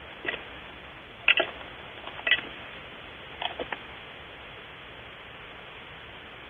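Steady hiss of the nest-box camera's microphone, with about six short clicks in the first four seconds from the nestling inside the box.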